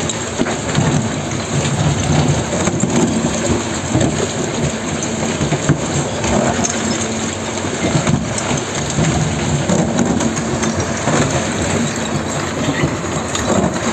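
Microtunnel boring machine cutterhead turning against the rock face as it breaks out, grinding through the rock with a steady rumble and a dense crackle of breaking stone.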